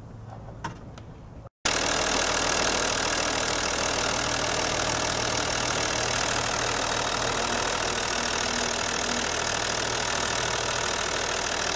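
A second and a half of faint clicking from hand work on the camshaft caps, then, after a cut, the Audi A6 C5's 2.5 TDI V6 diesel engine idling steadily. It has been reassembled with new rocker arms and hydraulic lifters and runs fine.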